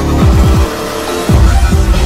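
Electronic music in a dubstep style: a heavy bass with several quick falling sweeps in the first half and another about one and a half seconds in.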